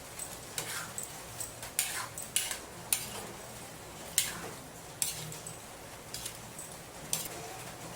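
Metal utensil clinking and knocking against a cooking pot, irregular sharp clicks, some with a short high ring, as the adobo is stirred.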